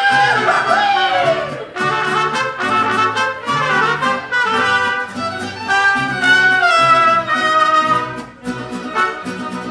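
Mariachi band playing live: a singer's voice slides through a long note at the start, then trumpets carry the melody over violins and rhythmically strummed guitars.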